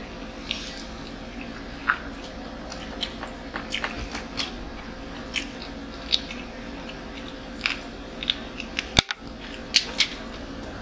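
Close-up eating sounds: crunchy bites and chewing of fried chicken, with many small irregular clicks and one sharp click near the end.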